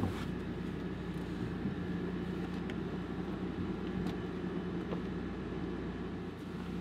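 Window air conditioner running with a steady low hum, with a few light knocks and clicks as someone climbs out through the back of the camper shell.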